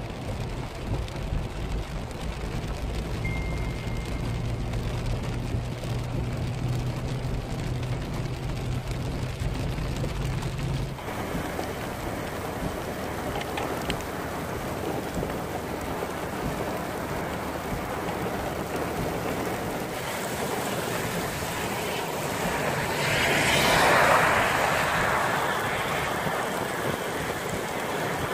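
Steady heavy rain falling. For the first eleven seconds it is mixed with the low steady hum of a vehicle's engine. After an abrupt change the rain on the wet ground is heard alone, swelling louder for a couple of seconds near the end.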